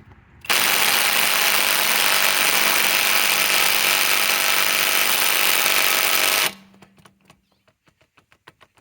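Hercules compact Gen2 cordless impact wrench hammering steadily on a seized lug nut for about six seconds, without breaking it loose. It stops suddenly, followed by a brief fading hum and a few faint clicks.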